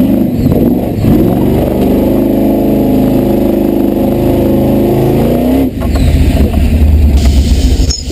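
Supercharged V8 engine of a Toyota Landcruiser, heard from inside the cab, revving hard with its pitch rising and falling under load. A little over halfway through it briefly drops away, then comes back as a lower, deeper drone.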